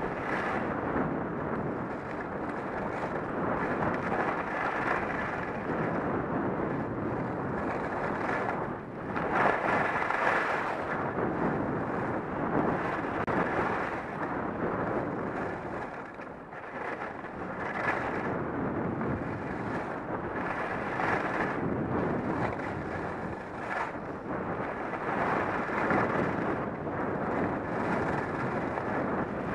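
Wind rushing over a helmet-mounted camera and edges scraping over packed snow on a fast downhill run, swelling and easing every few seconds with the turns.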